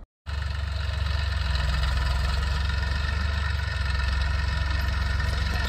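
Farm tractor's diesel engine running steadily as it pulls a tine cultivator across a field, a constant low hum with no change in speed.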